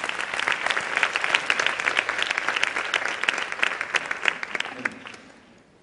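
Large audience applauding in a hall, with dense clapping that dies away about five seconds in.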